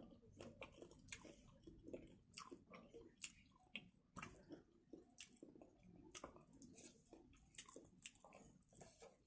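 Quiet close-up chewing of chili chicken and rice: a string of irregular wet smacks and small mouth clicks.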